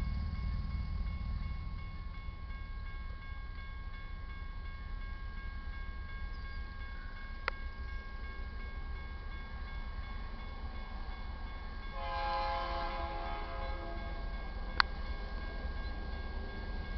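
Distant locomotive horn of the approaching BNSF intermodal train, one blast of about two seconds near the end. Under it are a low steady rumble and the crossing's warning bell ringing steadily, with two sharp clicks.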